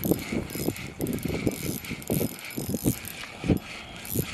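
Spinning reel being cranked, its gears and handle making a repeating mechanical whir, with uneven knocks about two to three times a second.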